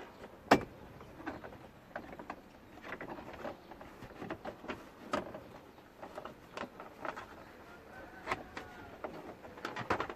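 Plastic interior trim panel being worked loose by hand: one sharp snap about half a second in, then scattered clicks and knocks of plastic being handled.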